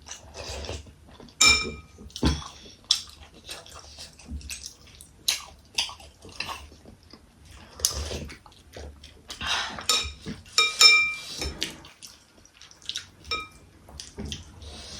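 Metal cutlery clinking and scraping on plates during a meal of momos. The knocks come irregularly, and a few louder ringing clinks fall about a second and a half in and again about eleven seconds in.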